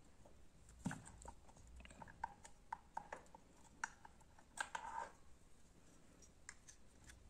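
Faint, scattered clicks and light taps of small parts being handled by hand: the motorcycle's oil filter cover and new oil filter being worked on. Most of them fall in the first five seconds, with a few more near the end.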